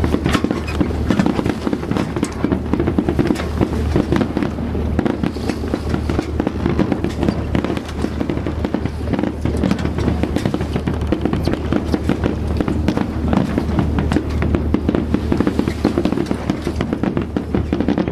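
Fireworks going off in quick succession: a dense, continuous run of bangs and crackles over a steady low hum.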